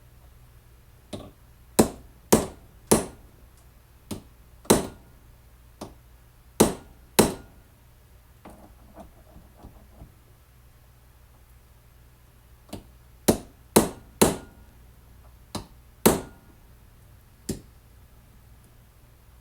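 Hammer blows on a workpiece, struck one at a time at uneven intervals in two runs of about eight strikes, with a few faint taps in the pause between the runs.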